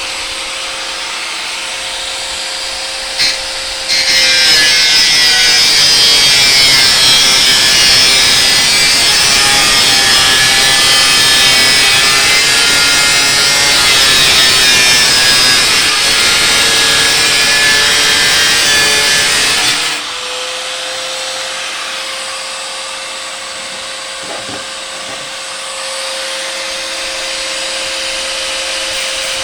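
Angle grinder spinning freely with a steady whine, then biting into the material from about four seconds in. Sixteen seconds of loud, harsh grinding follow, with the motor's pitch sagging under load. It then spins freely again until the end.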